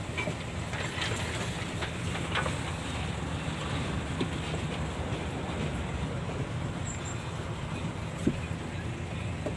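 Six-wheel lorry running slowly, heard from inside the cab: a steady low engine rumble with rattles and clicks as it rolls along a dirt track, and a sharp knock near the end.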